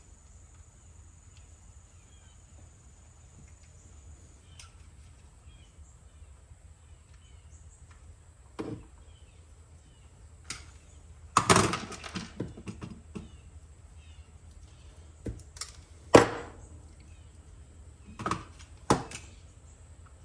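Scattered knocks and clicks of hands working with tools and small parts, irregular and a few seconds apart, with the loudest cluster about eleven and a half seconds in.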